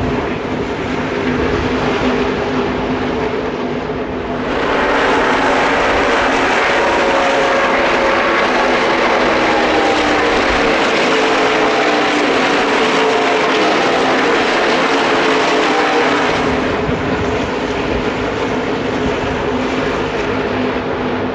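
NASCAR Craftsman Truck Series race truck V8 running at full throttle around the track. It is loudest from about four seconds in to about sixteen seconds, with its pitch falling as it goes by.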